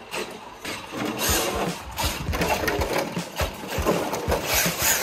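Electric RC Ford F450 truck on a big brushless motor and 8S LiPo power being driven on carpet: the motor whines in uneven surges as the throttle is blipped, with tyres scrubbing the carpet and short knocks from the truck.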